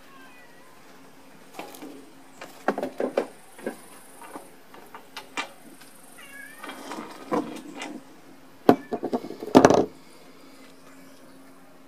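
Metal oil-filter end cap and cut-open filter parts handled and set down on a wooden table: scattered clicks and knocks, with the loudest clatter near the end. A short call with a bending pitch sounds about six seconds in.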